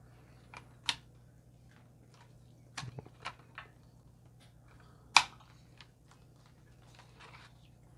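Scattered clicks and taps from handling a Logitech K580 slim keyboard, one near the start, a small cluster about three seconds in and the sharpest about five seconds in, over a faint steady low hum.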